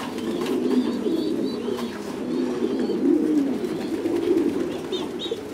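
Many caged pigeons cooing at once in overlapping low calls, with a few short high chirps over them.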